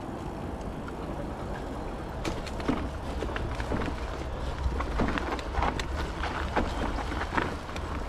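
Footsteps on a path, starting about two seconds in at a couple of steps a second, over a steady low rumble.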